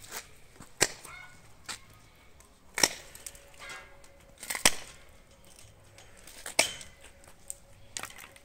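Hand pruning shears snipping through dry, dormant grapevine canes: a series of sharp cuts every second or two, removing the unwanted canes during winter pruning.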